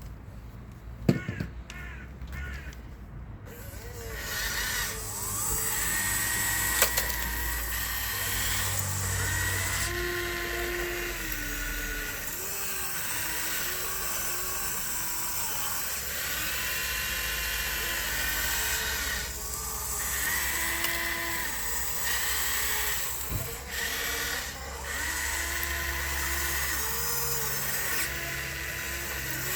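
Small electric motors and gearboxes of RC construction models whining as they work, the pitch stepping up and down as the controls change, after a few sharp clicks about a second in.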